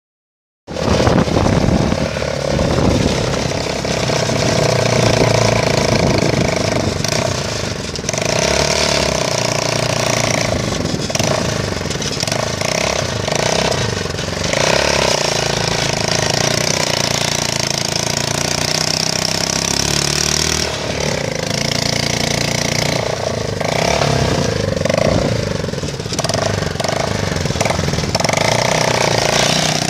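A motor vehicle running steadily under way, a loud continuous engine and road noise.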